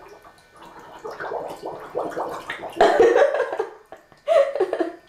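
A girl's voice close to the microphone making unintelligible mouth noises and mumbling in short broken stretches, loudest about halfway through.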